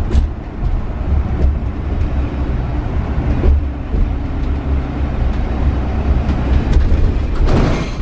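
Motorhome driving in town: steady low engine and road rumble heard inside the cab, with a brief rush of noise near the end.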